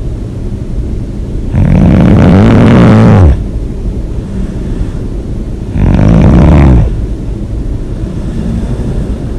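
A person snoring loudly: two snores about four seconds apart, the first longer with a pitch that rises and then falls, and a quieter steady noise between them.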